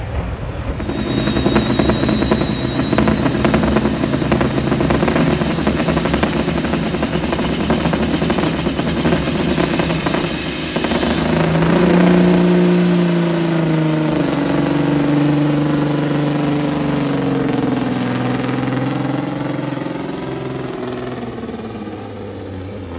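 Semi truck's diesel engine at full power dragging a weight-transfer pulling sled. A high whine rises steeply about halfway through, then the engine's pitch slowly sags as it labours under the growing load, and the sound eases off near the end.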